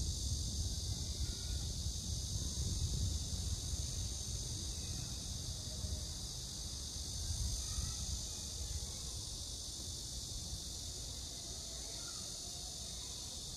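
Steady, high-pitched chorus of insects chirping, with a low rumble underneath that fades gradually.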